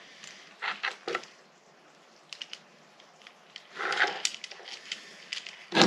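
Handling noise of a camera clamp's swivel adapter being twisted and worked by hand: scattered small clicks and scrapes, a busier patch about four seconds in, and a sharp knock near the end.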